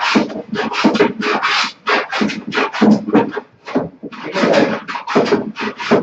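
A hand tool scraping back and forth over a wooden panel being levelled, in quick rasping strokes of about three to four a second.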